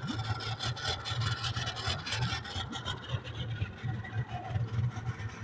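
Rubbing and scraping of fishing gear being handled in a small boat, a continuous scratchy rustle with small knocks, over a low steady hum.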